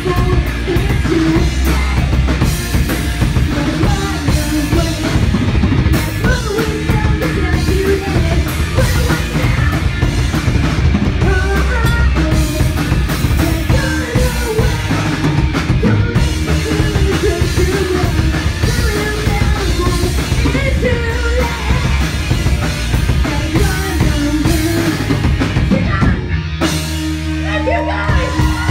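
Live rock band playing loudly, with a pounding drum kit and bass drum under singing. About two seconds before the end the drums drop out and a held chord rings on.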